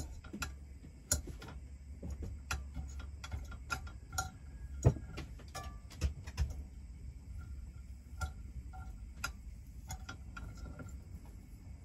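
Irregular light clicks and crackles of rice and curry frying in a pan, over a steady low hum, with a few faint short high-pitched notes from about four seconds in.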